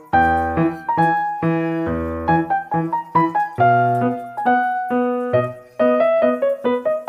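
Background piano music: single notes and chords struck one after another, each ringing and fading, over low bass notes.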